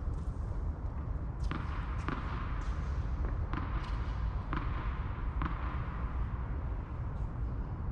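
Tennis ball being struck by rackets and bouncing on the court during a rally. There are about seven sharp hits, each a half-second to a second apart, that echo under the covered court's roof, over a steady low rumble.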